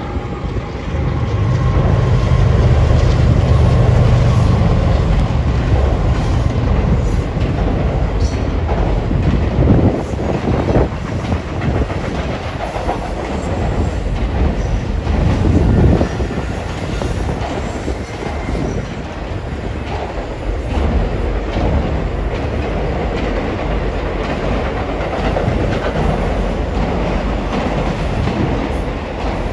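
Norfolk Southern double-stack intermodal freight train rolling over a steel girder bridge: a steady heavy rumble, deepest and loudest in the first ten seconds, with the wheels knocking over rail joints now and then.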